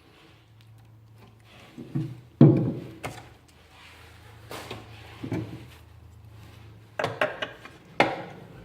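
Knocks and clunks of heavy, thick-gauge metal model excavator buckets being handled and set down on a hard surface, about seven in all, the loudest about two and a half seconds in and a quick cluster near the end, over a faint steady hum.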